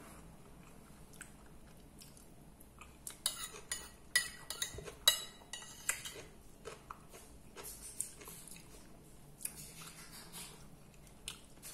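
Metal fork scraping and clinking against a plate as the last of the food is gathered onto it: a run of sharp clinks about three to seven seconds in, with a few lighter clicks after.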